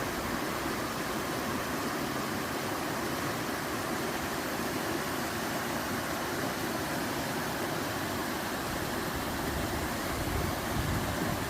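Steady, unbroken rush of water pouring down a waterfall in a rocky mountain stream.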